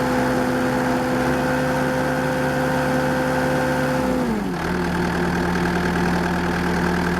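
2013 Bobcat S650 skid steer loader's diesel engine running steadily at raised speed, then throttled back to a lower idle a little past halfway.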